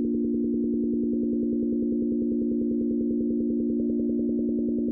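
Steady electronic drone: a few low held tones with a fast, even pulsing flutter.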